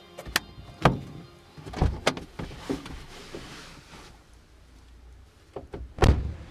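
Car interior handling sounds from a Peugeot's cabin: the sun visor is flipped up with a click, then a run of clunks and knocks as the driver's door is unlatched and opened and he climbs out. The loudest is a heavy low thump near the end, the driver's door shutting.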